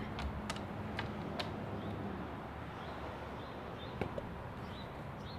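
Handling noise from a handheld camera being carried, a few light clicks in the first second and a half and another about four seconds in, over a steady outdoor background hiss.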